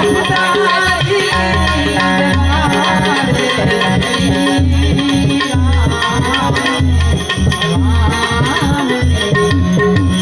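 Indian devotional music: a harmonium melody over sustained drone notes, with tabla keeping a steady beat.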